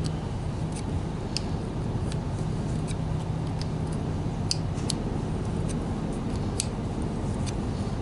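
Irregular light metal clicks of an open-end wrench and pliers working a compression battery-cable lug as its compression union is turned in, a few sharper clicks around the middle. A steady low hum runs underneath.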